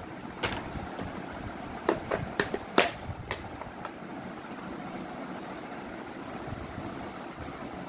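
Chalk tapping and scraping on a blackboard while a line is drawn along a steel ruler: a handful of sharp clicks in the first three and a half seconds, then only a steady background hiss.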